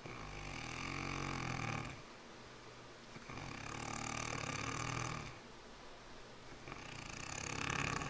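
Snoring: three long, rasping snores at a slow, even rhythm, about three seconds apart.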